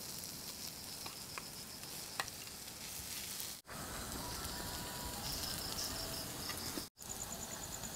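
Sliced onions sizzling gently in oil in a non-stick pan over low heat as they soften and begin to caramelise, with a couple of light clicks in the first few seconds. The sizzle breaks off briefly twice.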